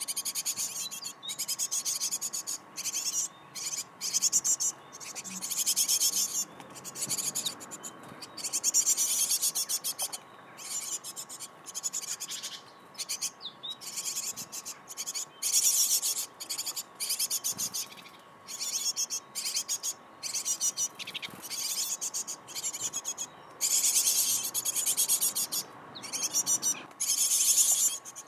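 Great tit nestlings begging for food: a high, rapid chorus of calls in repeated bursts of about a second, broken by short pauses.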